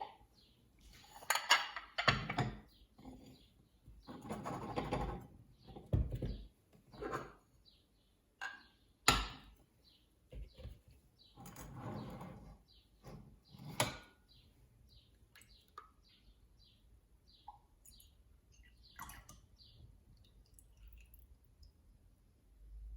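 Kitchenware being handled: a few sharp knocks and clinks, such as a jar and lid being set down, with rustling in between. Short bird chirps in the background.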